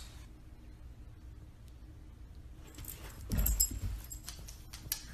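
A dog's collar tags jingling with a thump and rustling as it jumps down from the couch, followed by a quick run of clicks like paws and claws on a hardwood floor.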